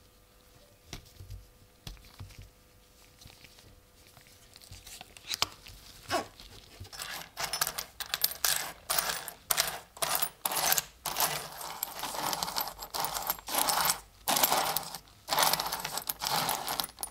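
A pile of old copper coins clinking and jingling as a gloved hand stirs and sifts through them, in a quick run of rattling bursts that starts about six seconds in, after a few faint handling sounds.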